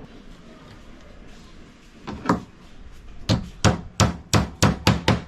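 Hammer blows on wood while the top lid of a homemade wooden beehive box is being nailed together: two strikes, then a quick run of about seven more that come faster toward the end.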